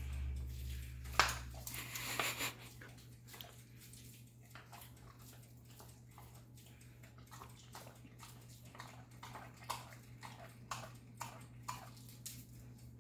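A wolf licking and mouthing a raw T-bone steak: soft wet smacks and clicks of tongue and teeth on the meat, a few sharper ones between one and two and a half seconds in, over a steady low hum.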